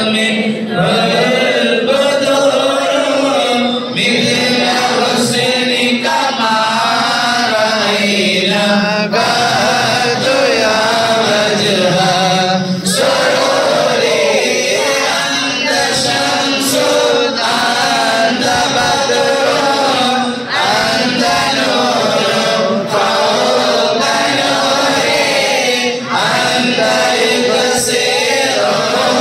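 A group of voices chanting a moulid together, a devotional recitation in praise of the Prophet, in a continuous melody that rises and falls.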